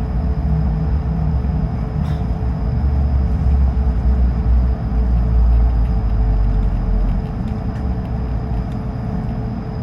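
Airbus A220-300 heard from inside the cabin while taxiing: a steady low rumble with the even hum of its Pratt & Whitney PW1500G turbofans at taxi power. The rumble eases about seven seconds in.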